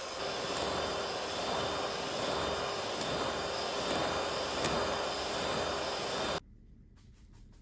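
Electric hand mixer running at speed, its beaters whipping a pale, foamy batter in a glass bowl: a steady motor whine over whooshing noise. It stops abruptly near the end.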